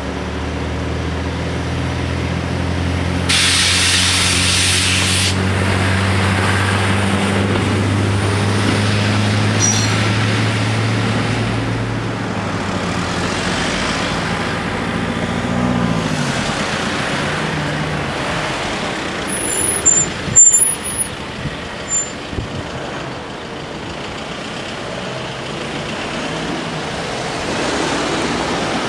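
Engines of a van and cars idling at a level crossing, with a burst of hiss about three seconds in. About fifteen seconds in the engines rev and the vehicles drive off over the tracks. Around twenty seconds in, more cars rumble across the crossing with a cluster of loud sharp knocks.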